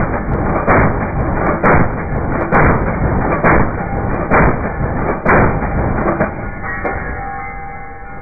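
Browning M2HB .50 BMG heavy machine gun firing full-auto, heard slowed down: deep, drawn-out blasts at about one a second, far below the gun's real rate of fire, fading out after about six seconds. Music comes in near the end.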